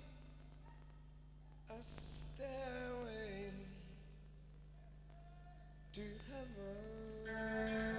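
Male rock singer's voice singing unaccompanied: two slow phrases with gliding, held notes, separated by quiet pauses. Near the end, a sustained instrumental chord comes in beneath the voice.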